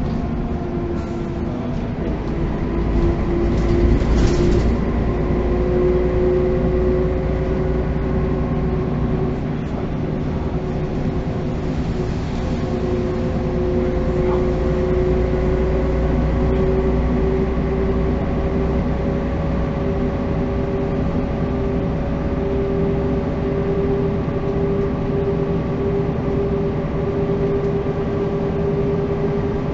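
Interior of a 1985 Mercedes-Benz O405 city bus while driving: the engine and drivetrain run steadily with a deep rumble and a whine that slowly rises in pitch, the rumble louder about three to five seconds in.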